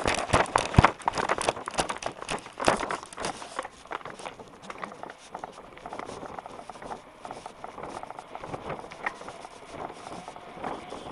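Mountain bike clattering and rattling as it is ridden fast over paving, with a burst of sharp knocks in the first three seconds or so as it jolts over rough ground, then a lighter steady rattle with scattered clicks.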